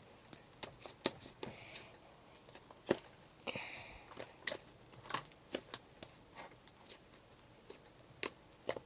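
Fluffy slime being poked and squeezed by hand, giving off irregular sharp clicks and pops with a few short squishes. It is a loud, clicky slime.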